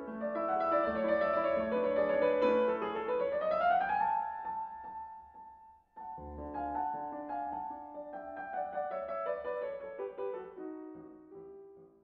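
Background music led by piano-like keyboard notes, with a rising slide about three to four seconds in and a brief break near six seconds, fading out near the end.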